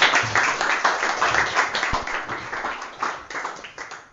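Audience applauding, the clapping gradually thinning out and dying away toward the end.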